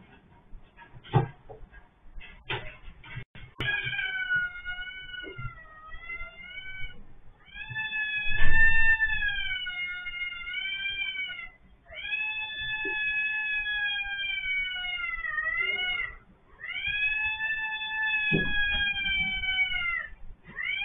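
A cat yowling in distress, four long, drawn-out cries of two to four seconds each, the first about four seconds in, with knocks and a thump among them. The cat is trapped with its head stuck in the waste opening of an automatic cat litter box.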